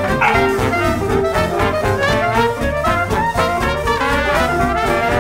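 Background jazz music led by brass instruments, with a steady swinging beat.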